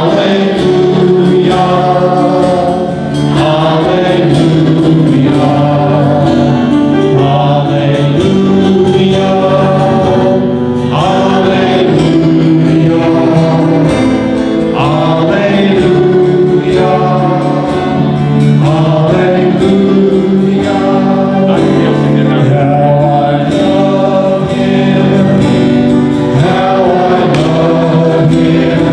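A group of voices singing a hymn together, with piano and guitar accompaniment, continuously and at a steady volume.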